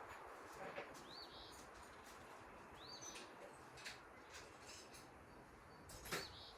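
Faint bird chirping: short rising-and-falling chirps, about one every one and a half to two seconds, over a low hiss. A few light clicks and taps come in between, the loudest near the end.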